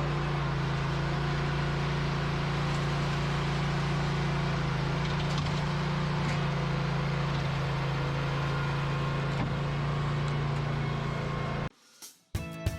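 A large engine running steadily with a deep, even hum, cut off abruptly near the end, where music begins.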